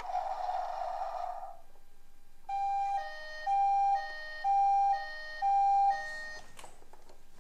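Toy ambulance's electronic siren through its small speaker: a buzzy blare that stops about 1.5 s in, then after a short gap a two-tone hi-lo siren alternating about once a second, four times, ending near the end.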